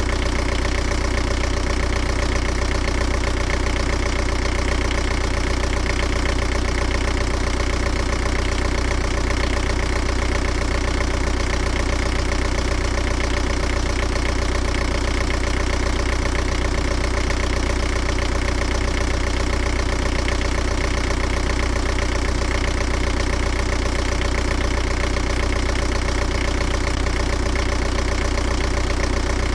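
Engine idling steadily, with an even, regular knocking rhythm that does not change.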